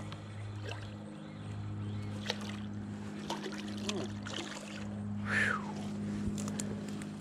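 A hooked fish splashing and thrashing at the water's surface as it is reeled in to the bank, with scattered small splashes and clicks. A steady low hum runs underneath, and a short falling whistle comes about five seconds in.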